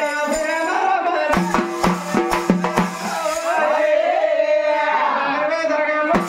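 Folk devotional song: a voice sings a melody that slides up and down, over a drum. The drum beats a quick run of strokes about a third of the way in, then drops back under the singing.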